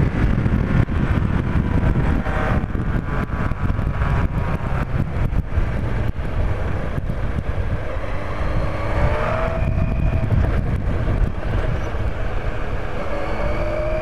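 Yamaha FZR1000 inline-four motorcycle engine running on the move, under steady wind rush on the microphone. In the second half the engine note rises as the throttle opens.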